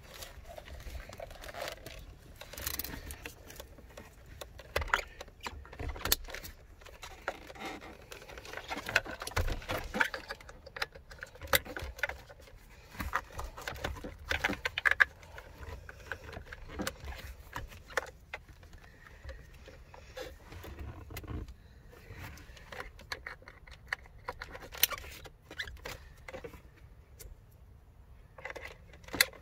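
Hands working plastic car-interior trim and plugging in wiring-harness connectors: irregular plastic clicks, taps and rattles throughout.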